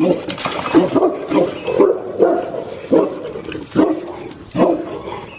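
A dog barking repeatedly, a quick series of short barks.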